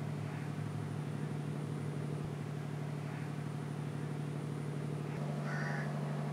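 Background music: a low sustained drone of several held tones, shifting to a new chord about five seconds in.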